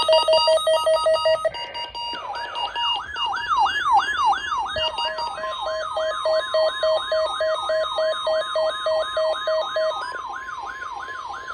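Weather alert tones and receiver alarms sounding together. It opens with electronic beeping. From about two seconds in, a fast siren-like wail rises and falls about two and a half times a second. About five seconds in, a steady high tone joins it: the National Weather Service's alert tone, sent to activate weather radios ahead of a severe weather statement.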